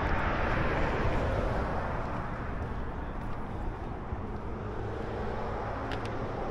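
Road traffic noise from a passing vehicle, loudest at first and fading away over the next few seconds. A faint click comes near the end.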